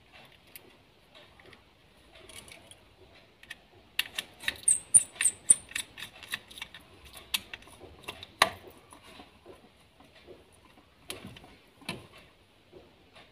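A quick run of sharp small clicks and taps, about three a second, from around four seconds in to eight and a half, with a few more near the end: a small plastic wall switch and lamp holder being handled and fitted together.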